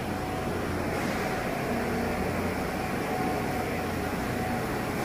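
An R160 subway train standing at the platform with its doors open, giving a steady hum and hiss with faint steady tones.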